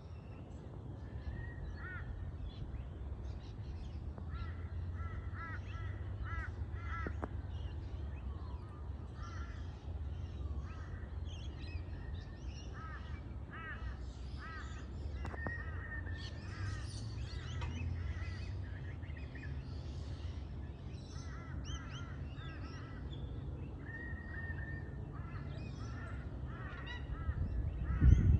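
Birds calling in short, repeated pitched notes, in clusters throughout, over a steady low rumble. A loud knock comes near the end.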